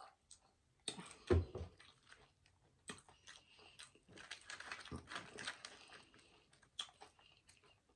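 Close-miked chewing and crunching of crunchy snack food, with scattered small crackles and mouth clicks, busiest partway through. A single dull thump sounds about a second in.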